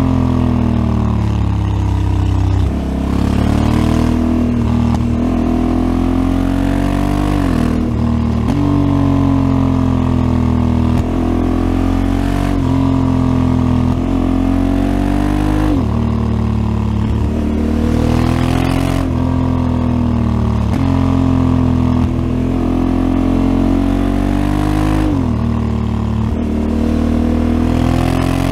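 Honda Africa Twin CRF1100L's 1084 cc 270° parallel-twin running through its stock exhaust while riding. The engine note climbs and falls continuously, with abrupt changes in pitch every few seconds as the throttle opens and closes.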